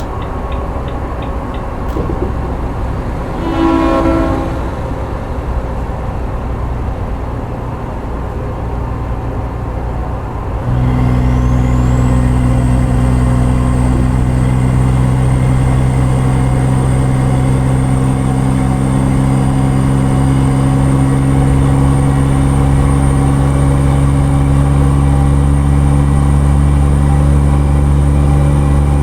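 Truck engine and road noise heard from inside the cab while driving, with a brief tone about four seconds in. About eleven seconds in, the engine note suddenly gets louder and steady, joined by a high whine that rises and then holds.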